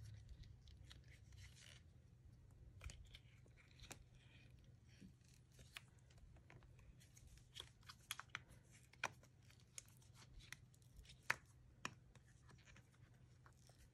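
Faint rubbing and peeling of a silicone mold being flexed off a cured resin casting, with scattered small clicks and scrapes as the mold releases.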